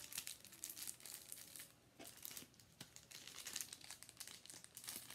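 Faint, irregular crinkling of clear plastic packets of nail-art sticker sheets being fanned out and shuffled by hand.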